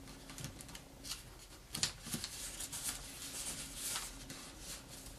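A sheet of origami paper rustling and crinkling under the fingers as a flap is folded over and the crease pressed down, with a sharper crinkle near two seconds in.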